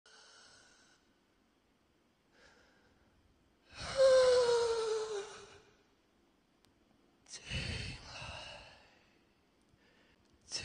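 A breathy voice sighing, its pitch sliding downward, about four seconds in, then a shorter breathy rush of air a few seconds later, with faint breaths between.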